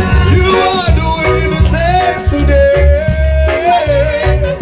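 Live gospel praise band playing with a singer holding long, drawn-out notes over a steady pulsing bass beat.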